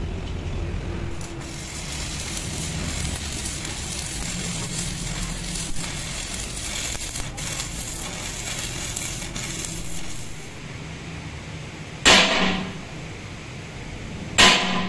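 Stick (arc) welding crackling and sizzling for about nine seconds while a spindle is welded onto a heavy truck's steel rear axle housing. A few seconds after the arc stops come two loud hammer blows on the steel housing, each ringing briefly.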